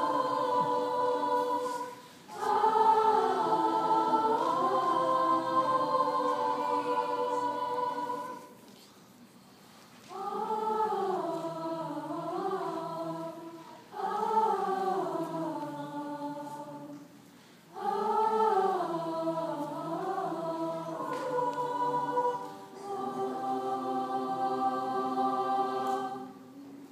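A large mixed school choir singing in phrases of a few seconds, each separated by a brief break, with a longer pause about a third of the way in.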